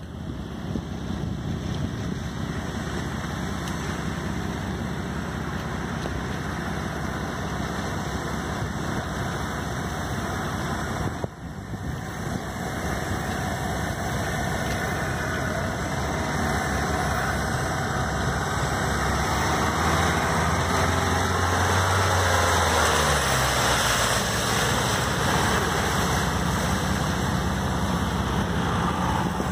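Diesel engine of a Range Rover Velar running as the SUV drives slowly through mud on a waterlogged track. It grows louder and deeper as the vehicle passes close, about two-thirds of the way through, over a steady broad noise.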